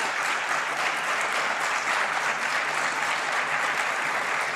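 Audience applauding steadily: sustained clapping from a large crowd.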